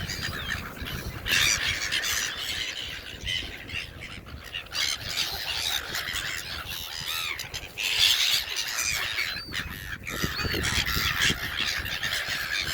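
A flock of hungry birds being fed with food, squawking and calling over and over, many short calls overlapping, with a low rumble underneath.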